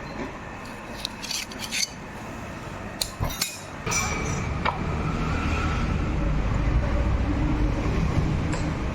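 Loose metal motorcycle parts clinking against each other as they are handled, with a few sharp clinks in the first four seconds. From about four seconds in, a steady low rumble grows louder underneath.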